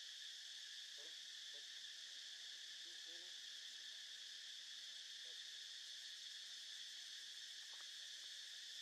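Faint, steady chorus of insects in the trees, an unbroken high-pitched drone.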